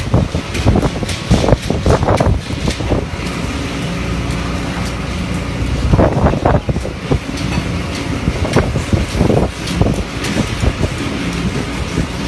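Long-line fishing boat's engine running steadily, with wind on the microphone and irregular knocks and thuds, thickest in the first few seconds and again about halfway through.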